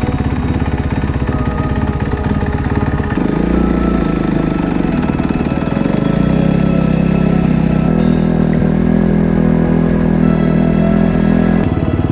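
Dirt bike engines, a Kawasaki KX250F four-stroke and a Beta RR300 two-stroke, running steadily near idle. The engine sound changes abruptly about three and eight seconds in. Background music plays underneath.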